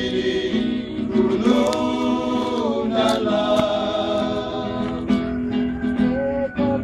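Male vocal group singing a song together in harmony, several voices holding and shifting long notes, accompanied by an acoustic guitar.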